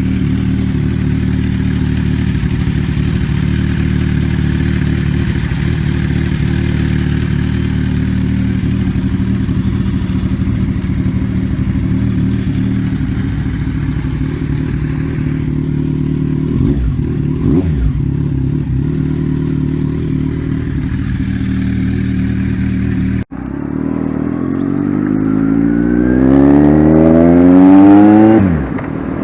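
Kawasaki Z1000R's inline-four engine, catalytic converter removed, idling steadily. Near the end, after a cut, it revs up with rising pitch, drops sharply for a moment and climbs again.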